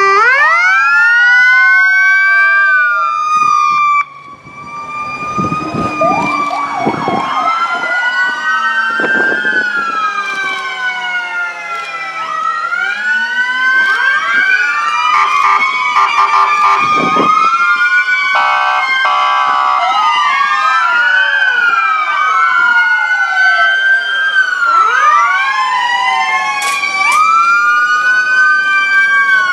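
Several emergency vehicles' electronic sirens sounding at once, many wails rising and falling over one another. Loudness drops suddenly about four seconds in and builds back up, and a rapid warble cuts in about two-thirds of the way through.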